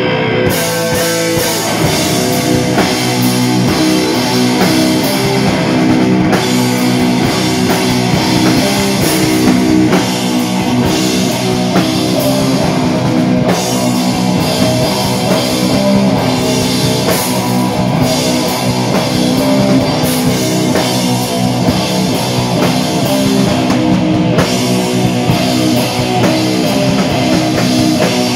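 Live rock band playing loudly: electric guitars driving a riff, with the drum kit and cymbals coming in about half a second in and pounding on under the guitars, the cymbals briefly dropping out a few times.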